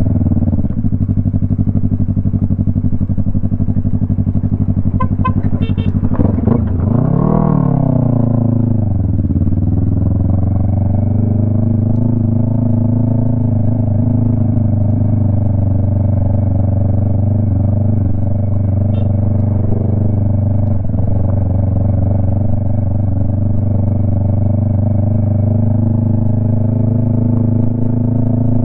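Yamaha MT-03 engine running loud through a Jeskap aftermarket exhaust with the dB killer removed, holding a steady speed. About seven seconds in, the revs rise and fall back once, then settle again.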